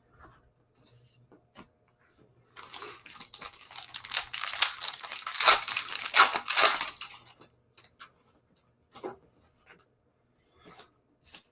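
Foil wrapper of a Panini Chronicles trading-card pack being torn open and crinkled by hand. It starts about two and a half seconds in and runs for about five seconds. A few soft ticks and taps follow.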